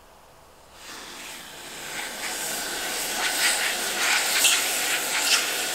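Aerosol freeze spray hissing out through its thin extension straw into a steel bowl. It starts faintly about a second in, grows louder, sputters sharply a few times, and cuts off near the end.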